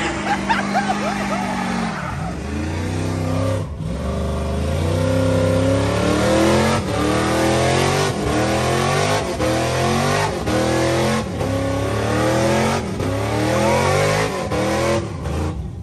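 A car engine revved hard again and again, its pitch climbing and dropping back about once or twice a second.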